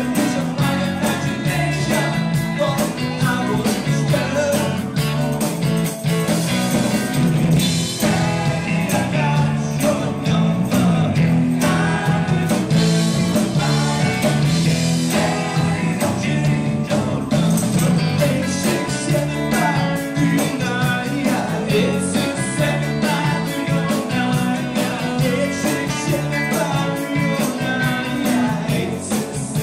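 Live rock band playing: electric guitars with overdrive, drums, keyboards and a singing lead vocal. One guitar plays through a Rocknrollamps Blues Senior valve amp with four 6V6 power tubes, set to drive.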